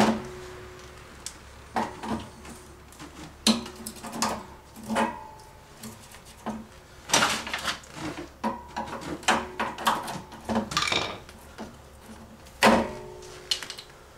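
Irregular knocks and clinks of plumbing pipe, fittings and tools being handled and fitted together, some with a short metallic ring; the loudest knocks come at the very start and near the end.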